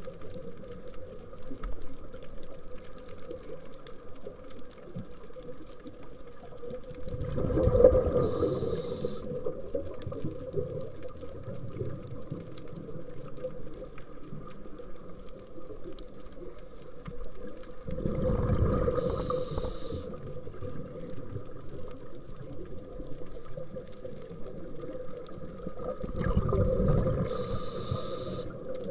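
Underwater sound on a scuba dive: a steady hum, broken three times, about ten seconds apart, by a loud rumbling rush of the diver's exhaled bubbles leaving the regulator.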